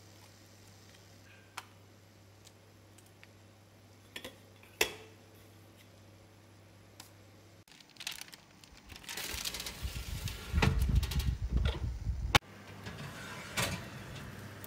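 A few small clicks and scrapes of a spoon spreading sauce on a baking tray, then loud rattling and rumbling as the metal tray is handled and pushed under an oven grill, which cuts off suddenly and gives way to a steady hum.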